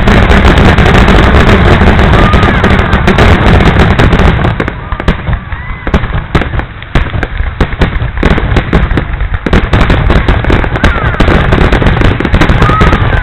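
Fireworks display: many shells bursting in quick, overlapping bangs, loud enough to push the recording near its limit. The barrage eases briefly in the middle, then builds again.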